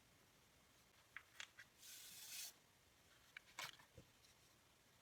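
Faint, brief pouring hiss of dye going into a pot of hot water, about two seconds in, with a few light clicks and taps before and after.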